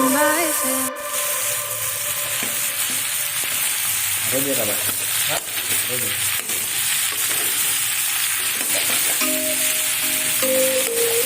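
Food sizzling as it fries in a pan, with stirring. Faint background music drops out about a second in and comes back near the end.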